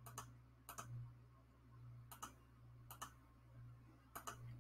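Faint clicking of a computer mouse: five quick double clicks, each a press and release, spaced irregularly about a second apart, over a low steady hum.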